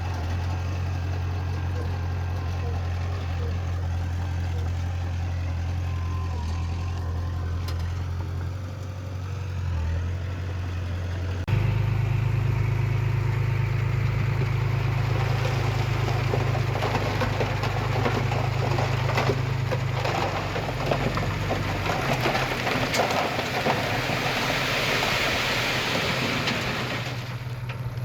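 Heavy diesel machinery running with a steady low engine drone; a little over ten seconds in the engine note jumps louder and shifts pitch, as under load. From about the middle on, a dense rattling, crackling noise builds over the engine and fades near the end.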